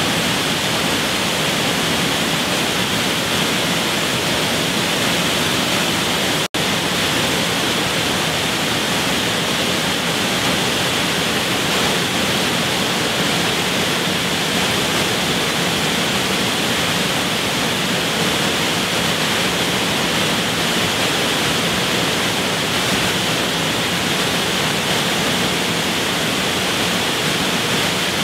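Waterfall pouring, a steady full rushing of falling water, broken once by a momentary dropout about six and a half seconds in.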